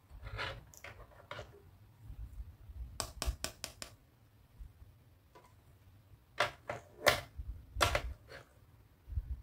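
Plastic clicks and clacks from a pink toy cash register being handled by hand: a few taps early, a quick run of about five clicks about three seconds in, then several louder clacks in the last third.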